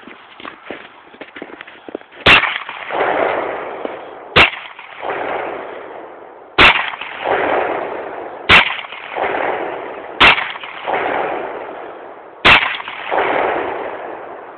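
Ruger Redhawk .44 Magnum revolver firing six shots of reloaded ball target ammunition at a steady pace, about two seconds apart, emptying the cylinder. Each loud shot trails off in a drawn-out tail of noise.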